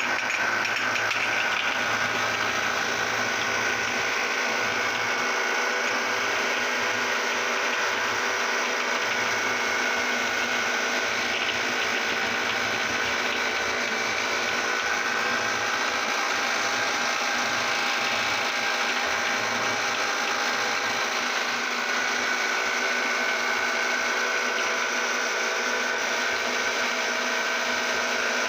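Meat grinder motor running steadily with a constant whine while grinding Oreo cookies.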